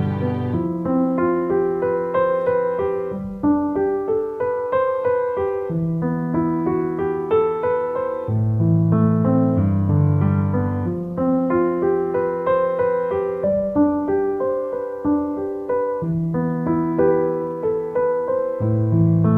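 Piano background music: slow, gentle chords over a steady bass line.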